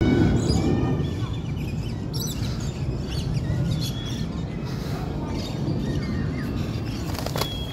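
Small birds chirping now and then over a steady low background rumble, with a couple of sharp clicks.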